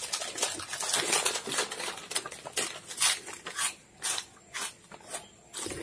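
Potato chips and wafers being crunched and chewed by two people, a dense run of crisp crunches that thins out into spaced crunches with short pauses after about three and a half seconds.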